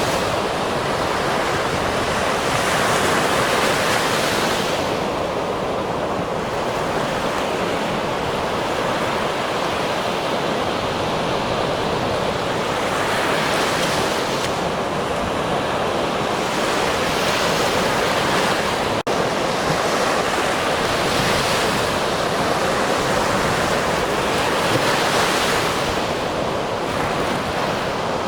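Ocean surf: a continuous wash of waves that swells and eases every few seconds. A split-second dropout breaks it about two-thirds of the way through.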